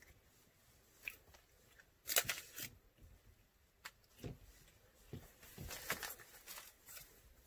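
Faint handling noises of a silicone resin mold and a USB flash drive on a tabletop: a few scattered clicks and light knocks, the sharpest about two seconds in. Near the end comes the rustle of a plastic zip bag being handled.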